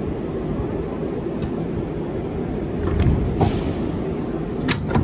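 New York City Subway 7 train running on the track with a steady rumble. A heavier thump comes about three seconds in, a brief hiss follows, and a few sharp clicks come near the end.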